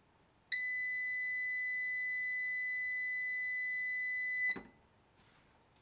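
Socomec NPL-0800-D UPS's alarm buzzer sounding one steady, high-pitched beep about four seconds long as the power switch is held, then stopping with a short click; the unit gives no output power.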